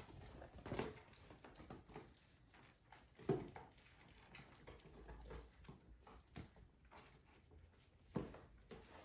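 Quiet, scattered soft thumps and scuffling of young kittens playing and wrestling, with a sharper knock about three seconds in and another near the end.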